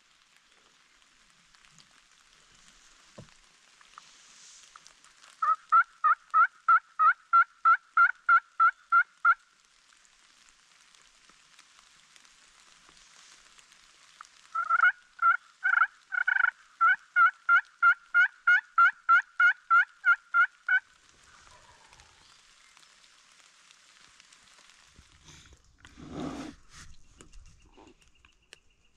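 Wild turkey calling: two long runs of evenly spaced yelp-like notes, about three or four a second, the second run longer. A short rustle or thump follows near the end.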